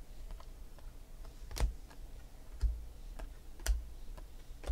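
Stack of Panini Select football cards being flipped through by hand: a light click each time a card is slid to the back of the stack, with three louder clicks about a second apart and softer ticks between.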